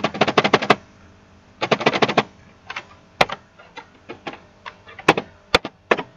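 Typing on a computer keyboard: two quick runs of key clicks in the first two seconds or so, then slower, scattered single keystrokes.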